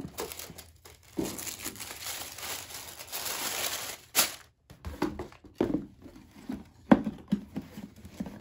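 Tissue paper and plastic wrapping crinkling as a pair of sneakers is lifted out of its shoebox. A sharp click follows about four seconds in, then several knocks as the shoes and box are handled and the shoes set down.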